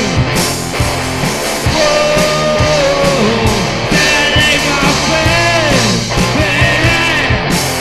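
Punk rock song: a band playing with drums and electric guitar, and a melodic line that slides up and down in pitch.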